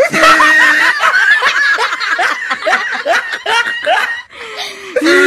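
A young woman laughing hard in a rapid run of high-pitched laughs, breaking off briefly about four seconds in before laughing again.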